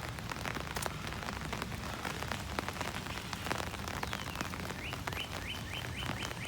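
Rain falling on an open umbrella overhead: a steady patter of many small drop ticks. Near the end, a quick run of short high chirps, about five a second.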